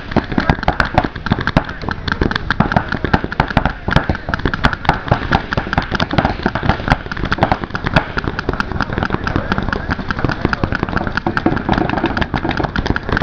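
Several paintball markers firing at once: a dense, irregular stream of sharp pops, many shots a second, with no let-up.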